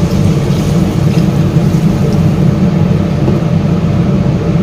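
Water pouring into a wok of chicken feet and heads in chilli spice paste, stopping after about two seconds, over a steady low rumble that runs throughout.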